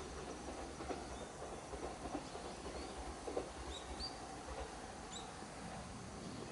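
Faint rumble of a Uchibo Line local train moving away from the level crossing, with a few scattered clicks, and several short high chirps in the second half.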